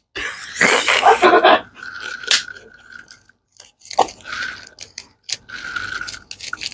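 Plastic candy packets being handled and cut open with scissors: crinkling wrapper and scissor snips, in a string of short scratchy bursts and sharp clicks, the loudest burst in the first second and a half.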